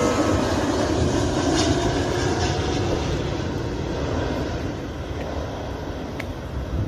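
Jet engine roar of an Airbus A330-343 with Rolls-Royce Trent 700 engines on landing approach, a steady rumble that slowly fades as the airliner passes and moves away.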